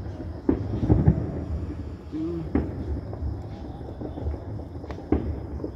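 Fireworks going off out of sight, several sharp bangs with rumbling echoes, the loudest cluster about a second in.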